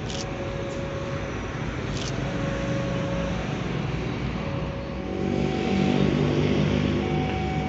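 An engine running steadily, its low hum growing louder about five seconds in.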